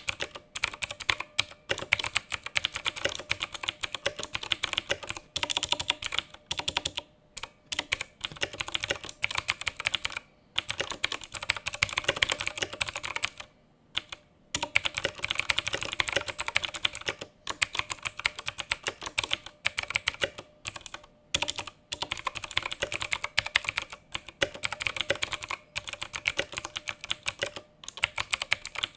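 Typing on a Koodo Cavalier mechanical keyboard with clicky Outemu Blue switches: dense runs of keystroke clicks broken every few seconds by brief pauses.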